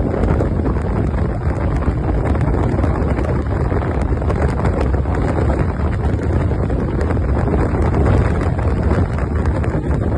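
Wind buffeting the microphone on a moving motorbike: a steady, loud low rumble of rushing air, with no clear engine note standing out.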